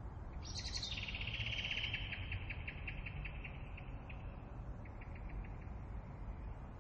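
A bird calling: a sharp high note about half a second in, then a quick run of short notes that gradually slows over about three seconds, with a brief second run about five seconds in. Underneath, a steady low rush of wind.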